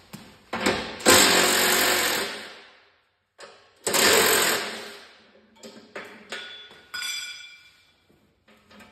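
Cordless power tool with a 7/16-inch socket spinning nuts off the snowblower housing's bolts in two bursts of about a second and a half each, followed by a few light metal clinks.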